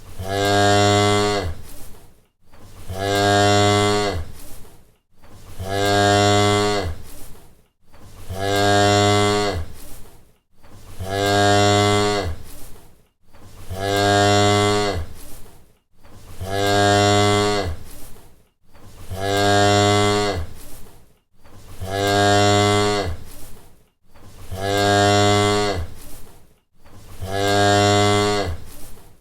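A cow mooing: one long, low moo repeated over and over, about every two and a half seconds, each call identical, as a looped sound effect.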